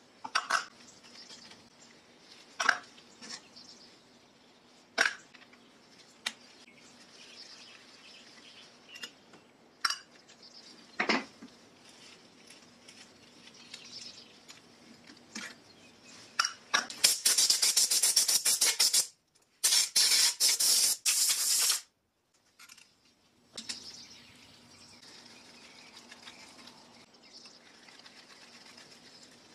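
Small metal clicks and taps as a screwdriver and a slotted cover plate are handled on the cast-iron arm of a Pfaff 1245 sewing machine, over a faint steady hum. About halfway through come two loud stretches of dense rattling noise, about two seconds each.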